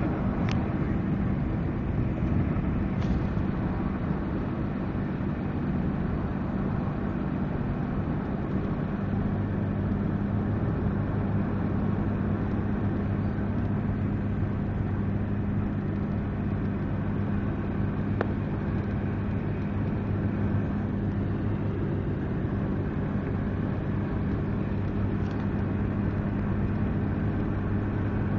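A vehicle engine running steadily with a constant low hum over an even background noise, with a few faint clicks.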